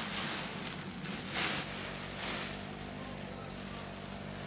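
Nylon paraglider wing fabric rustling as it is handled and folded, in a few short swishes, over a steady low hum.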